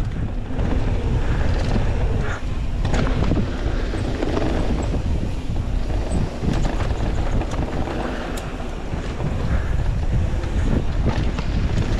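Wind buffeting the microphone on a fast mountain-bike descent, with the tyres rolling over a dry dirt trail and scattered knocks and clicks from the bike over bumps.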